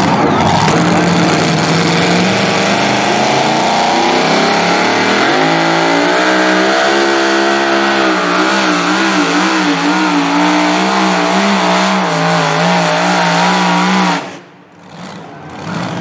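Supercharged engine of a super modified two-wheel-drive pulling truck at full throttle under load, its pitch climbing and then wavering up and down. It drops away suddenly near the end.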